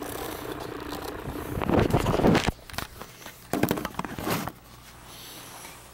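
Handling noise: a hand and a plastic bottle rubbing and bumping against the camera's microphone, in two loud scuffing bursts about 2 and 4 seconds in, over a low steady hum.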